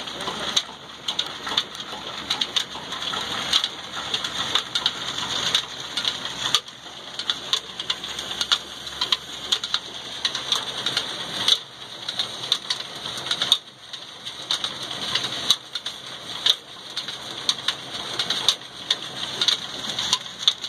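Belt-and-pulley drive of a chakki flour mill running off an old Ruston Hornsby diesel engine: spinning pulleys and flat belts whirring with a steady hiss and many rapid, irregular clicks and slaps.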